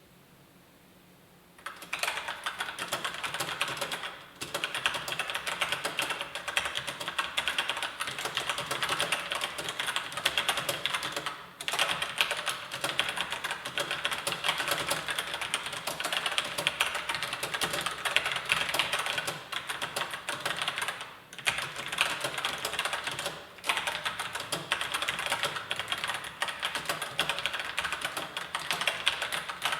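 Rapid typing on a ROCCAT Sova MK mechanical keyboard with TTC Brown tactile switches, the keys clacking in a dense, continuous run. It starts about two seconds in and breaks only for a few short pauses.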